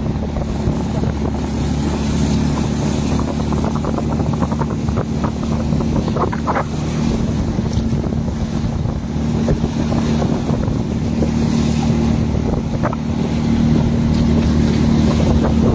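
Motorboat engine running steadily under way, with the rush of wake spray along the hull and wind on the microphone.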